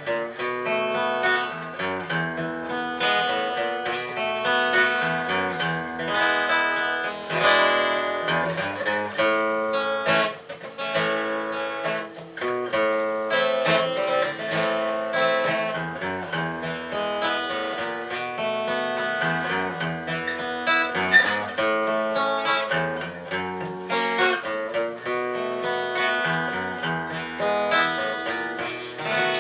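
Acoustic guitar playing an instrumental break between sung verses, picked notes over strummed chords.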